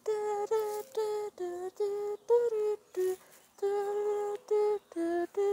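A high voice singing a wordless tune in short, separate 'da da' syllables, two to three notes a second.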